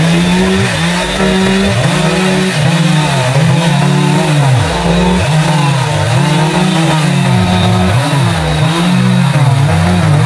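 Stihl MS 381 two-stroke chainsaw at full throttle, ripping lengthwise through a big log. Its pitch keeps sagging under load and picking back up, with deep dips about five seconds in and again about eight seconds in.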